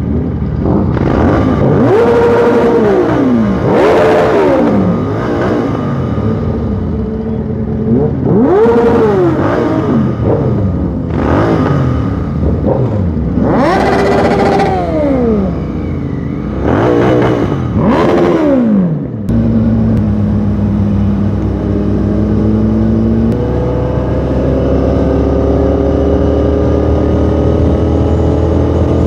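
Motorcycle engine revved hard about seven times over a steady idle, each rev rising and falling in pitch. After a sudden break, a motorcycle engine runs steadily on the move, its pitch climbing slowly as it accelerates.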